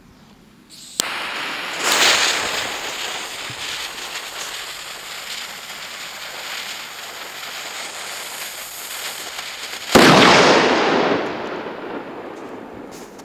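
Spanish trueno firecracker: its fuse catches with a click about a second in and hisses steadily for about nine seconds, then the banger goes off with a sudden loud bang that echoes and dies away over about two seconds.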